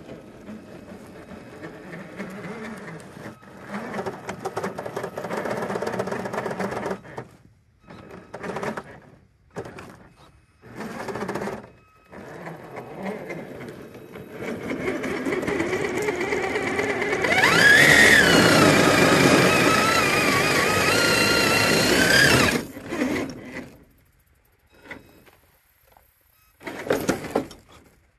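Traxxas TRX-4 RC crawler's brushed electric motor (a 21-turn Holmes Hobbies Trailmaster on a 3-cell LiPo) and drivetrain whining in on-and-off throttle bursts as it climbs over rocks. The longest and loudest burst comes past the middle, its whine rising quickly in pitch and then holding before it cuts off.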